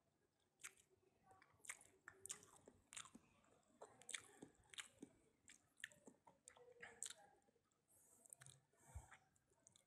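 Near silence broken by faint, irregular short clicks and smacks, a few every second.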